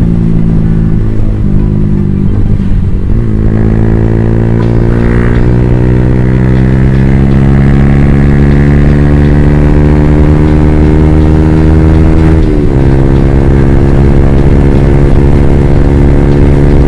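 Motorcycle engine under way, heard from the rider's position: its note climbs slowly for several seconds as the bike accelerates, then drops suddenly a little past the middle with an upshift and runs steady after.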